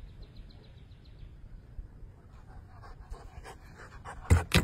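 A puppy running up close over pavement. Its footfalls and breathing grow louder over the last couple of seconds, ending in two loud thumps right at the microphone.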